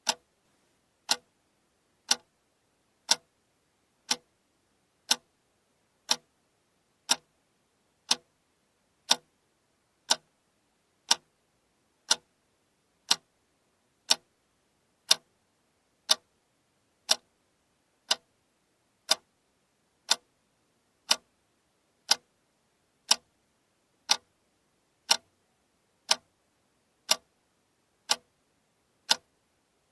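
Alarm clock ticking, one sharp tick every second at a steady, even beat.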